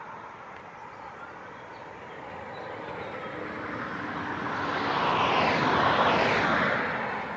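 A road vehicle passing close by: tyre and engine noise swells to a peak about five to six seconds in, then fades.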